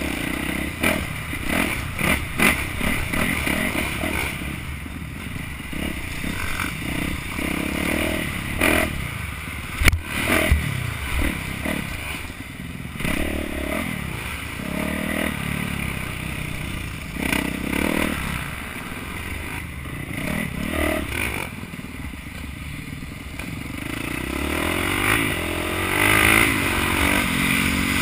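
Supermoto motorcycle engine heard from the rider's seat, repeatedly revving up and dropping off through the corners of a dirt section, with a sharp knock about ten seconds in. Near the end it revs up steadily as the bike accelerates onto pavement.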